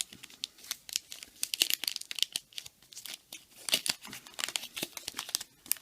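Paper trading-card pack wrappers crinkling and tearing as packs are opened, with cards handled: a dense run of irregular sharp crackles.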